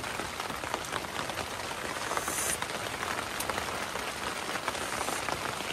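Steady rain falling on a tent, a dense patter of drops.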